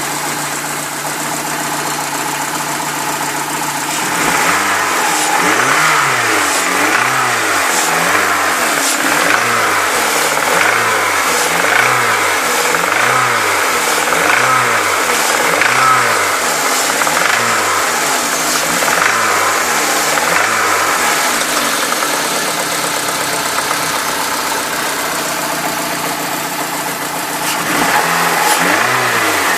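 Peugeot 306 S16's 2.0-litre sixteen-valve petrol engine running. Its speed rises and falls about once a second from about four seconds in, settles to a steady speed for a few seconds, then swings again near the end. This is the engine noise the owner is trying to show.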